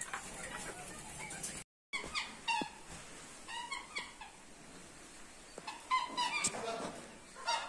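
Black swans calling: short, high, whistling honks, several in loose groups, after a brief dropout in the sound about two seconds in.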